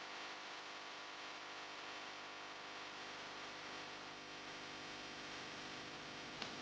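Steady hiss with a faint hum underneath, and a single sharp click near the end.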